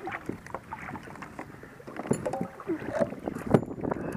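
Knocks and splashes on a sit-on-top fishing kayak as the paddler shifts and reaches over the side, with a string of short hits and the loudest knock about three and a half seconds in.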